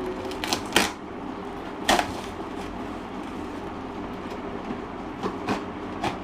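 Parcel packaging being wrestled open by hand: a few sharp crackling snaps of plastic and cardboard over a steady background hum.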